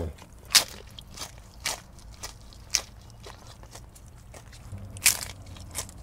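Crunchy hard-shell taco being bitten and chewed: a series of sharp crunches, five in the first three seconds, a pause, then two more near the end.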